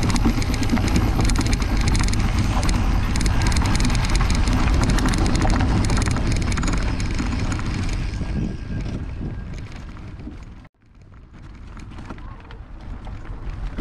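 Mountain bike riding down a dirt singletrack: wind buffeting the microphone, with tyre and frame rattle over the rough trail, loud for about eight seconds and then quieter. A brief drop-out near the end, after which the riding noise resumes more softly.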